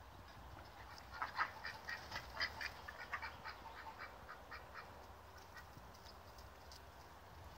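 Domestic ducks quacking in a rapid run of short calls starting about a second in, loudest at first, then thinning out and fading.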